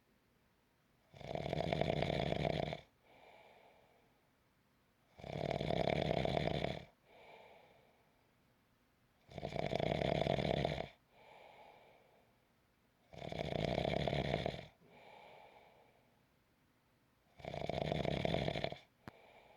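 Snoring: five long, loud snores about four seconds apart, each followed by a fainter, shorter breath sound.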